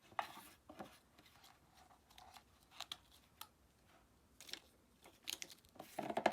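Faint rustling and scattered clicks of toy packaging being handled and opened, with a few sharper clicks in the second half.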